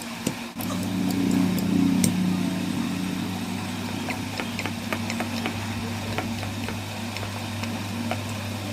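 Renault Kwid's engine running steadily at idle while its air conditioning is tested after a compressor repair. A steady low hum steps up about half a second in, as the AC load comes on, and then holds, with a few light clicks over it.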